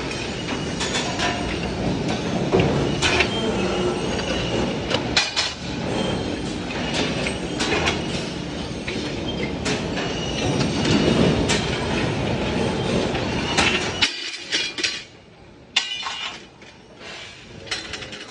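Automatic hydraulic pipe clamp machine and its hydraulic power unit running: a steady industrial din with repeated sharp metallic clanks. About fourteen seconds in, the low running noise stops suddenly, leaving scattered clinks of flat steel strips being handled.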